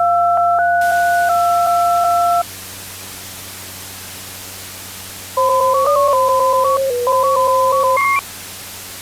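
Synthesized electronic tones over static hiss and a low hum. A steady beep is held for about two and a half seconds, with small steps in pitch. Later a short, quick melody of stepped beeps ends on a higher blip.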